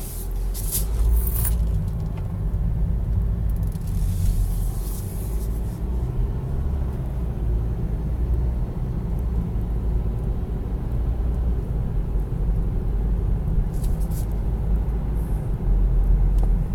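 Car engine running with a steady low rumble, heard from inside the cabin, with a few light clicks in the first two seconds and again near the end. The engine keeps running through the stop: the automatic start/stop is not shutting it off, even at normal operating temperature.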